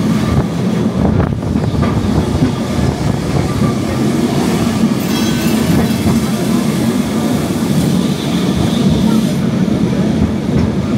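Lisbon Tram 24, a vintage Remodelado electric tram, running along its rails as heard on board: a steady low rumble of wheels and motor, with a brief high-pitched wheel noise about five seconds in.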